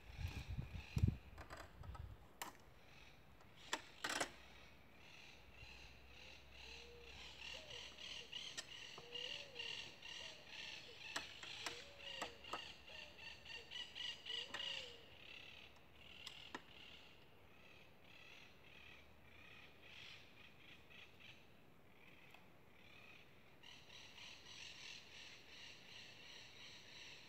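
Birds chirping and calling in the background, with a few sharp wooden knocks near the start and again about four seconds in as the wooden panel frame is handled against the post.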